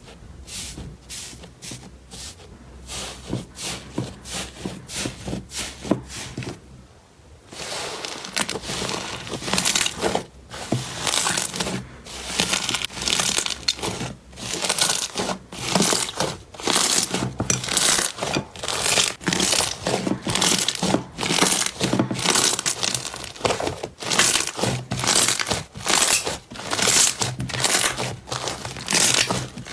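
Slime being squeezed and pressed by hand, giving a rapid, irregular stream of crackles and pops. It is quieter for the first several seconds, then grows louder and busier.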